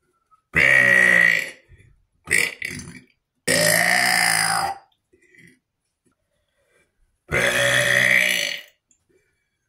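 A person burping: three long burps of about a second each, with a shorter, broken burp between the first two.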